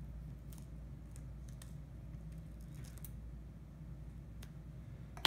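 Faint scattered clicks and taps of hands handling a laptop's display lid and hinge, over a steady low hum, with one louder knock near the end.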